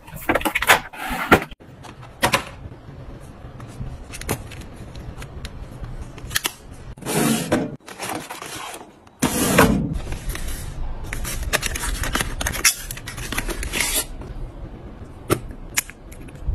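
Close-up handling sounds of packages and bottles being put away in plastic cabinet drawers: plastic packaging rustling, boxes scraping and sliding into place, and scattered knocks and clicks. A couple of sharp clicks come near the end.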